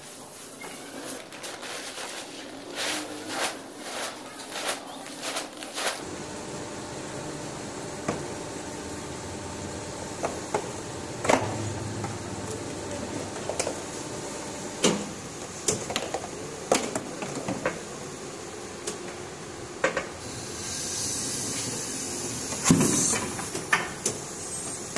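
Plastic granules rustling as a hand stirs through a heap of them, then a workshop's steady machinery hum with scattered clicks and knocks. Near the end there is a few seconds of hiss and one loud knock.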